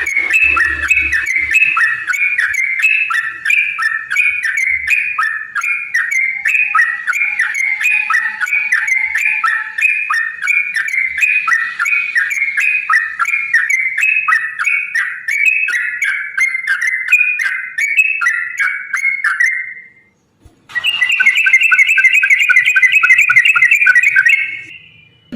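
Yellow-vented bulbul (trucukan) singing a long, fast run of repeated notes. The song breaks off for a moment about 20 seconds in, then resumes louder.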